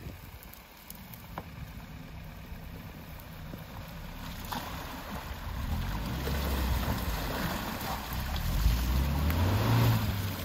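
New Suzuki Jimny's 1.5-litre four-cylinder petrol engine working under load as the SUV crawls through a mud-filled rut, with its wheels churning the mud and water. The low engine note grows steadily louder through the second half.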